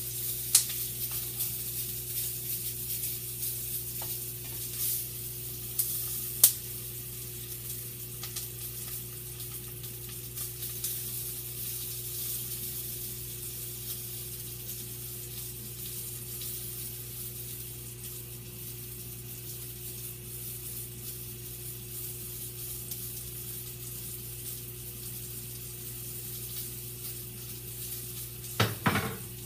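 Sausages sizzling steadily as they fry in a frying pan, with a few sharp pops in the first several seconds and a brief louder knock near the end.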